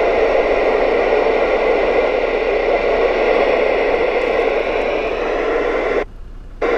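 Steady hiss of static from a CB radio's extension speaker, squelch open on a channel with nobody transmitting. Near the end the hiss cuts out for about half a second as the channel is switched.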